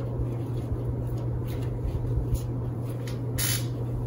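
Steady low hum with a few faint taps, and a brief rustling hiss near the end.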